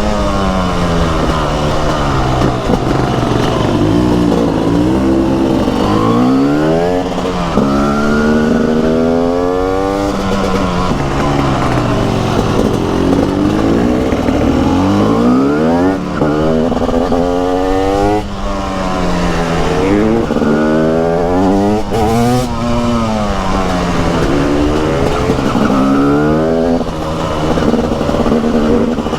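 TM SMR 300 single-cylinder two-stroke supermoto engine under way, its revs climbing and dropping over and over as it accelerates, shifts and slows, with a few quick sharp rises in pitch.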